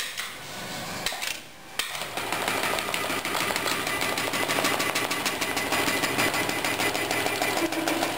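Computer-controlled industrial pattern sewing machine stitching along a clamped template jig. After a click and a brief lull, it starts running about two seconds in with a rapid, even stitching rhythm.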